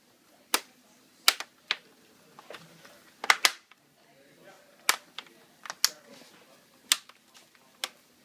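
Bottom cover of a Samsung Series 7 ultrabook snapping onto the chassis: about ten sharp, irregular clicks as its clips lock into place.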